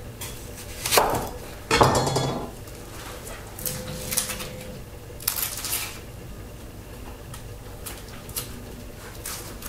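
Kitchen knife cutting through a red onion onto a wooden cutting board, two sharp knocks in the first two seconds, followed by quieter dry crackling as the papery onion skin is peeled off by hand.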